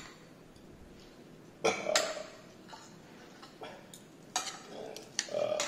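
Metal spoon and fork clinking and scraping against a dinner plate: several separate strikes, the loudest pair about a second and a half in, some leaving a short ring.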